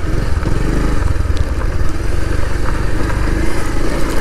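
Motorcycle engine running steadily, heard up close from the bike as it is ridden slowly over a rough dirt track.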